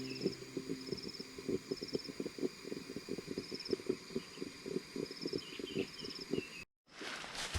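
Insects calling in short high trills that repeat regularly, over a fast run of soft low knocks, about four or five a second. Near the end the sound cuts out briefly and gives way to a rustling scrape.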